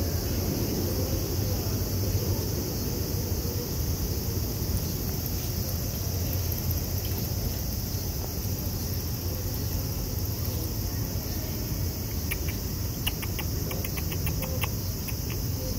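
Evening outdoor ambience: a steady chirring of insects over a low, constant rumble of distant traffic, with a run of faint clicks near the end.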